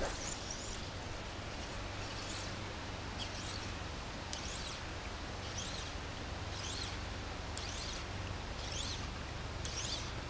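A songbird repeating a short, high chirping phrase about once a second over a steady background hiss.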